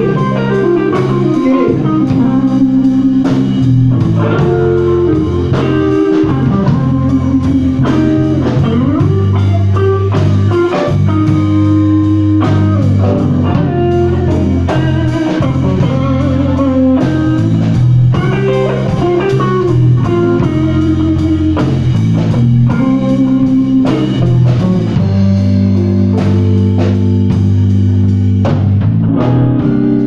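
Live blues band playing an instrumental passage: electric guitar lines over bass guitar and a drum kit, loud and steady.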